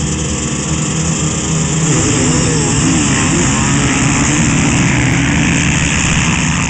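A pack of motocross dirt bikes revving at the start gate. About two seconds in, the engine pitch climbs and wavers as the bikes launch and pull away together.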